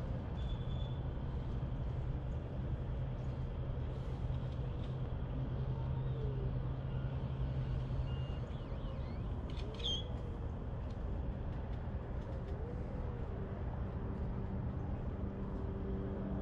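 Steady low rumble of a running engine, with a hum that drops out about eight seconds in and a different hum that comes in near the end.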